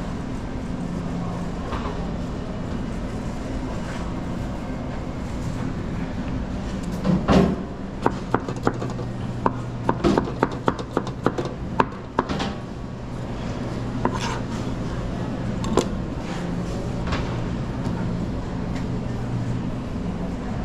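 Kitchen work at a pizza counter: a quick run of about a dozen sharp knocks and clatters of utensils on hard surfaces, starting about seven seconds in and lasting some five seconds, over a steady machine hum.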